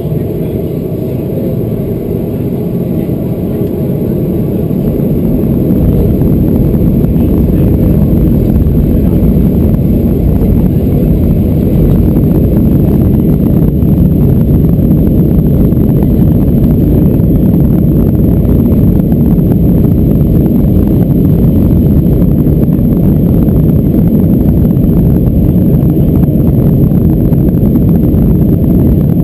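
Cabin noise of a Boeing 737-400 on takeoff: its CFM56-3 engines grow louder over the first six seconds or so as thrust comes up, then settle into a loud, steady low rumble.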